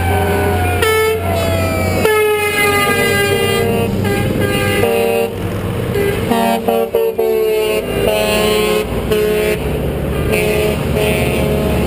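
Truck air horns honking in repeated blasts of varying length as tractor-trailers pass, over diesel engine rumble. In the first few seconds a siren wail slides steadily down in pitch.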